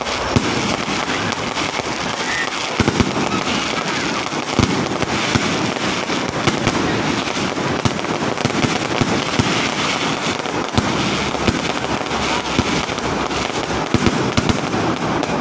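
Fireworks going off in a continuous, dense barrage of crackles and bangs, with sharper, louder bangs standing out every second or two.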